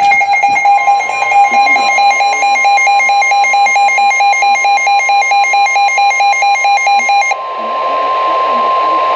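NOAA Weather Radio warning alarm, a steady high single tone near 1 kHz, which signals that a warning broadcast is coming. For most of its length it is layered with a rapidly pulsing electronic alert beep that cuts off suddenly about seven seconds in.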